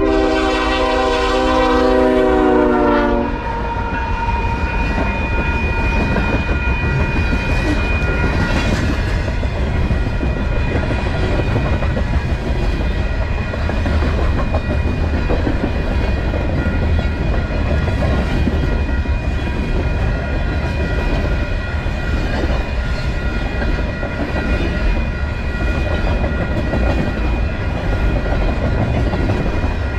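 A Canadian Pacific freight train passing close by, led by a GE ES44AC diesel locomotive. Its multi-chime air horn sounds, dips slightly in pitch as the locomotive goes by and cuts off about three seconds in. Then the freight cars roll past with a steady rumble of wheels on the rails.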